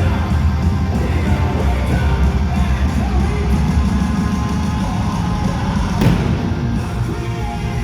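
A hard rock band playing live through a loud concert PA, with heavy bass and drums, and the crowd cheering over the music. There is a sharp hit about six seconds in.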